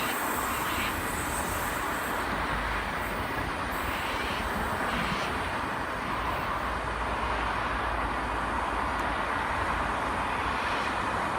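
Oscar H-set double-deck electric train pulling out of the station, a steady, even rumble of wheels and traction equipment.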